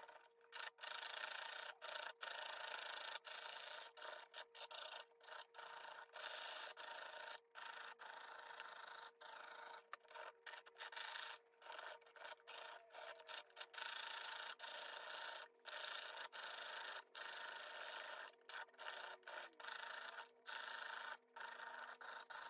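Jeweler's saw cutting a piece of brass sheet by hand on a bench pin: faint, rasping saw strokes repeated over and over, broken by many brief pauses.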